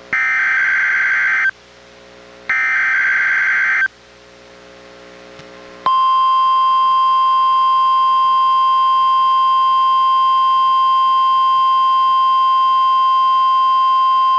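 NOAA Weather Radio emergency alert signal for a Required Weekly Test: the last two bursts of the SAME digital data header, harsh screeching blasts of about a second and a half each, a second apart. After a short pause, about six seconds in, the steady 1050 Hz warning alarm tone starts and holds without change.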